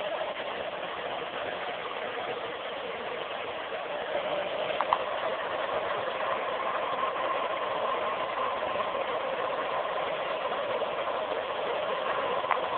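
Hair dryer blowing steadily with a constant motor whine, drying a poodle's wet coat after her bath. A short tap comes about five seconds in, and the dryer cuts off at the very end.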